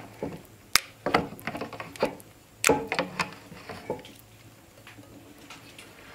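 Wooden masher pounding cooked huckleberries in a metal pail: an uneven run of wet squelches and sharp knocks, stopping about four seconds in.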